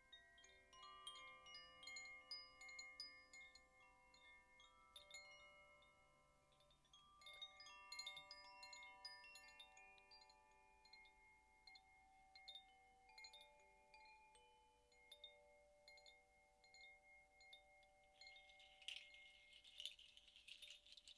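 Two hand-held cylindrical chimes swayed so their inner rods strike at random, giving soft, overlapping bell-like tones that ring on for seconds. A brighter jingling clatter joins about nineteen seconds in.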